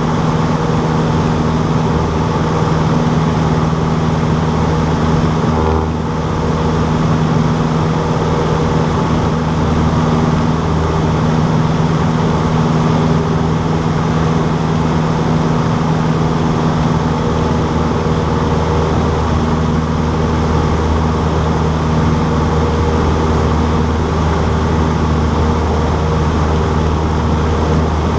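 Cessna 152's Lycoming O-235 four-cylinder engine and propeller running at a steady speed, a constant loud drone with a brief slight dip about six seconds in.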